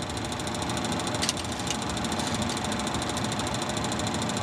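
Steady mechanical hum with constant high whining tones from the helicopter cockpit's running equipment, with a couple of faint clicks a little over a second in from display bezel buttons being pressed.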